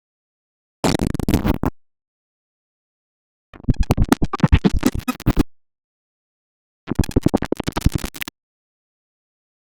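Three digital glitch sound effects, each a burst of fast stuttering clicks and buzzy fragments lasting one to two seconds, separated by silence; the middle one is the longest.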